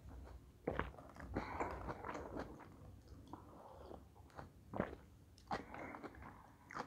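Quiet, close-miked mouth sounds of sipping a drink from a mug and swallowing, with a few sharp lip or tongue clicks.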